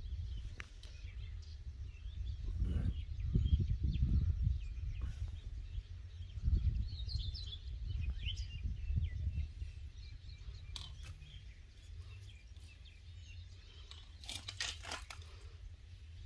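Gusty wind rumbling on the microphone, strongest in the first half, with small birds chirping in the background. A few sharp clicks come near the end.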